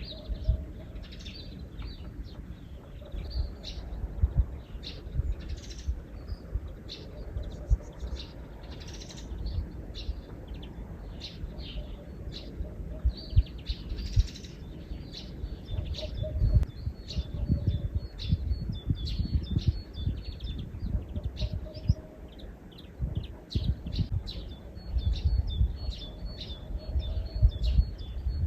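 Small birds chirping with many short, high calls, and a quickly repeated call in the second half. Uneven low rumbling lies underneath.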